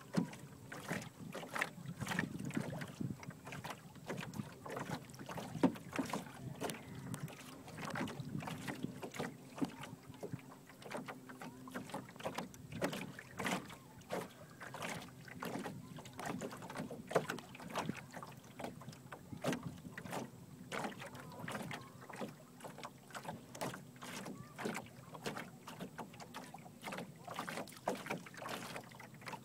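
Small waves slapping and splashing against the hull of a sailing canoe under way, an irregular patter of short splashes several times a second, with wind buffeting the microphone.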